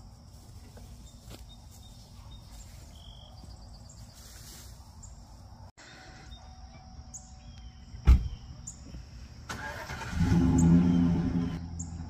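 A single loud thump, like a truck door shutting, then a pickup truck's engine cranking and starting up, running loudly for a couple of seconds before settling lower.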